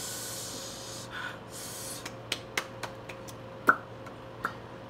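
A woman breathing hard through her mouth, hissing breaths over lips burning from spicy noodles, then a few light, sharp clicks, one louder a little past the middle.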